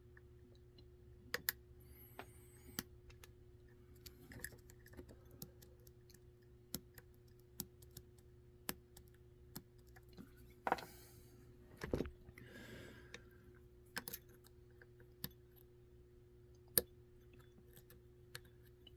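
Scattered light clicks and taps from handling a deadbolt lock core and its small pins while repinning it, irregularly spaced, with a couple of short scrapes about two-thirds of the way through.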